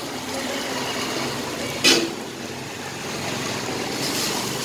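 Metal spatula spreading and mashing vegetable filling on a masala dosa on a hot cast-iron griddle, over a steady noisy stall background, with one sharp clank about two seconds in.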